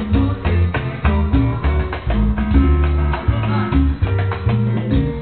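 Loud salsa music with a stepping bass line, guitar and a steady percussive beat.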